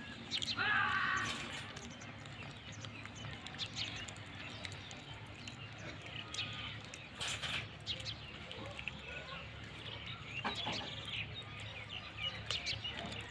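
Birds chirping on and off, the loudest call about a second in, over a low steady hum of outdoor background noise.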